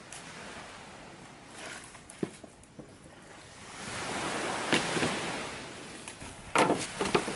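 Sea surf washing in, swelling about four seconds in and then easing off, with a few sharp knocks near the end.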